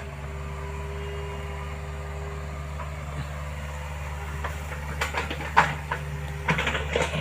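Hydraulic excavator's diesel engine running steadily, with a string of sharp knocks and clatters in the second half, the loudest a little past halfway.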